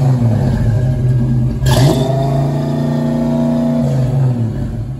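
1986 Ford Mustang GT's 5.0-litre V8 running loud, revved up sharply about two seconds in and held. The revs fall back near the end.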